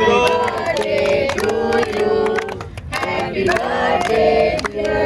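A group of adults and children singing a birthday song together, with hand clapping over the singing.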